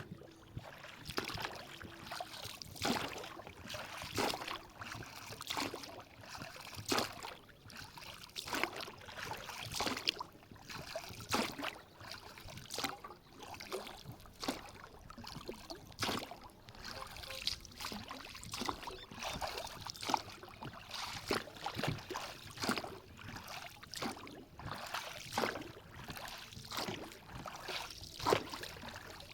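Water splashing and lapping in a string of irregular short splashes, about one or two a second.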